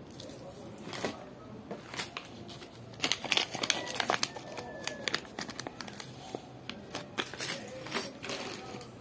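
Clear plastic bag of small metal game pieces crinkling as it is handled. A few isolated clicks come first, then dense, irregular crackling from about three seconds in.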